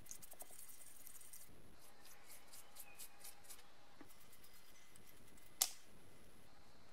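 A small bristle brush scrubbing degreaser-soaked rubber mincer feet: runs of faint, quick, scratchy strokes. One sharp knock comes a little over five and a half seconds in.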